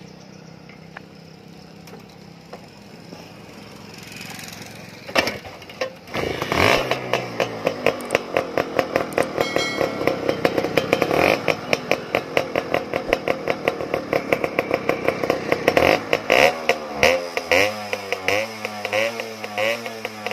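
Suzuki Max 100 (Shogun) single-cylinder two-stroke engine with an expansion chamber exhaust, started about five seconds in. It runs with a fast, even popping beat, then is revved in a series of short throttle blips, its pitch rising and falling, from about sixteen seconds in.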